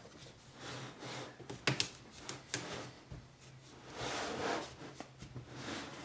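Faint scraping of a plastic guitar pick working along the seam of a Lenovo Legion 5 laptop's bottom panel, with a few light clicks as the panel pries up from the body.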